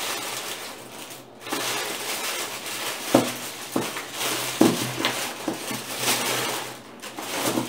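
Paper wrapping rustling and crinkling as small gift items are handled and unwrapped, with a few short sharp clicks and taps about halfway through.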